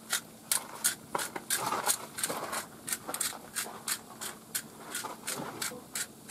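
Salt and pepper shaken out over eggs cooking on a griddle: a quick, even run of short, dry rattles, about three a second.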